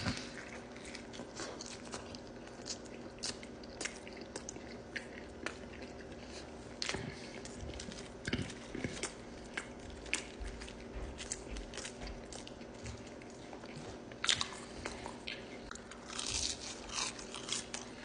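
Close-up chewing of a mouthful of double bacon cheeseburger: a steady run of soft, wet mouth clicks and smacks, after a bite at the start, getting busier in the last few seconds.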